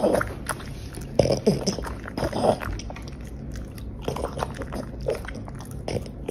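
A French bulldog chewing beef strips and sweet potato taken from chopsticks: irregular wet chewing and biting clicks that come in short clusters.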